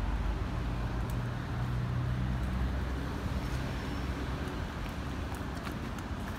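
Low, steady rumble of road traffic, with a vehicle engine humming, strongest in the first few seconds.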